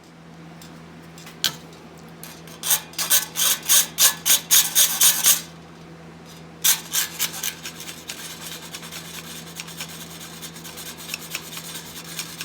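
Flat metal file rasping over the welded joint of a steel bandsaw blade, cleaning up the weld: a quick run of about eleven strokes, roughly four a second, then after a short pause a second run that tapers off to lighter strokes. A steady low hum runs underneath.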